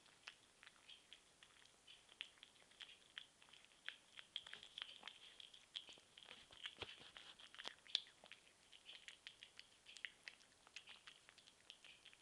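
Cat eating from a bowl: faint, quick wet chewing and smacking clicks, several a second, with one louder click about eight seconds in.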